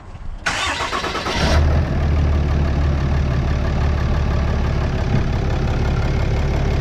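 2018 RAM 3500's 6.7 L Cummins turbo-diesel cranked by the starter for about a second, then catching and settling into a steady idle. This is the first start after the turbo and exhaust manifold were refitted with new gaskets to cure a faint whistling leak.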